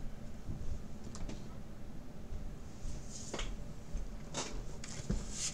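Faint room noise with a few soft clicks and several short, hissy rustles in the second half, like light handling of things on a desk.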